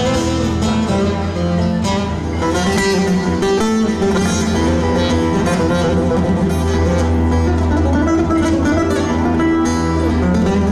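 Instrumental interlude of a Turkish folk song between sung lines: a plucked bağlama (saz) melody of quick notes over a steady bass accompaniment.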